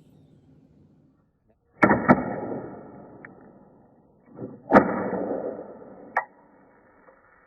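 Kodak Instamatic 100 shutter released twice with an AG-1 flashbulb in the socket: each time a sharp click and a hiss that fades over about a second, then a lighter click. A faint high whistle lingers from the fired bulb.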